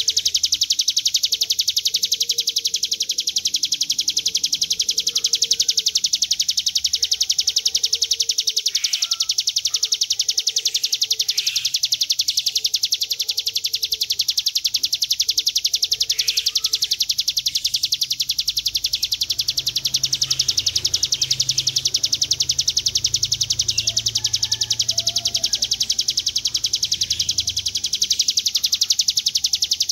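Ciblek gunung (a prinia) singing its long reeling song (ngebren): one unbroken, very fast, high buzzing trill that runs on without a pause.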